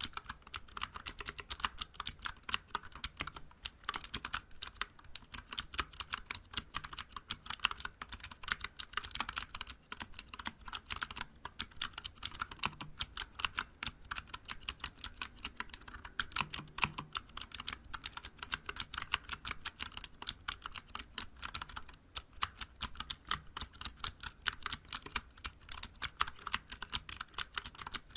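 Continuous fast typing on a Vortex Vibe mechanical keyboard with Cherry MX Blue switches, aluminium case and SA-profile keycaps: a dense stream of sharp, clicky keystrokes. Typing pauses briefly about ten seconds in and again around twenty-two seconds.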